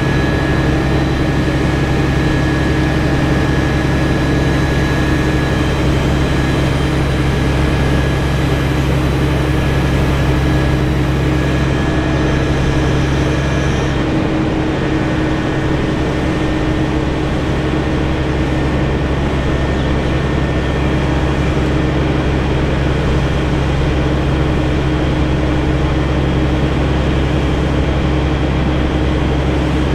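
Heavy engine running steadily at a constant speed, a loud, even low drone.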